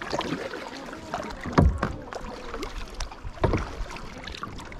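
Kayak paddling on a calm river: paddle blades dipping in and lifting out of the water with drips and small splashes, with two stronger strokes about a second and a half and three and a half seconds in.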